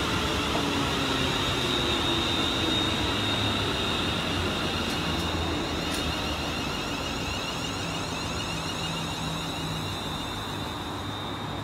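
Class 380 electric multiple unit running at the station: a steady high electric whine over wheel and motor rumble, easing slightly toward the end.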